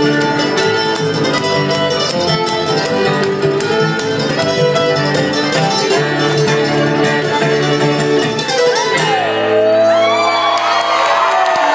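Live bluegrass band playing a quick tune on mandolin and fiddle. The tune ends on a held chord about nine seconds in, and the crowd then whoops and cheers.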